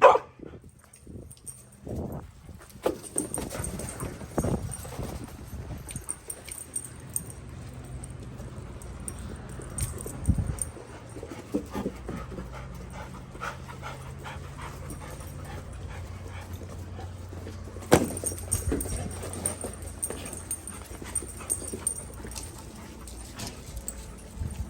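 Dogs panting and moving about, with scattered clicks and knocks over a low steady hum; the loudest knock comes about eighteen seconds in.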